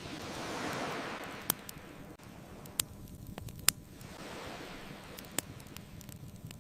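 Ocean waves washing in twice, each a rising and fading rush, with a crackling bonfire giving four sharp pops between them.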